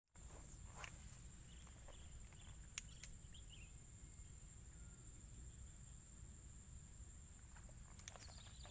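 Near silence: faint outdoor ambience with a low rumble and a steady, thin, high-pitched whine throughout, and a few faint clicks about one and three seconds in.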